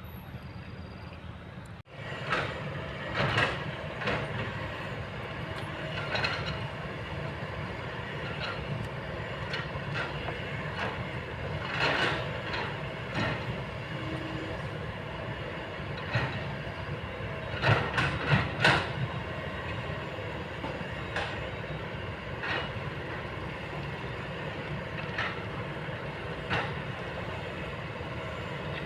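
Kobelco long-boom excavator working: steady diesel engine and hydraulic drone with irregular metallic clanks and knocks from the bucket and boom. The engine starts abruptly about two seconds in, and the loudest knocks come as a quick cluster of three past the halfway point.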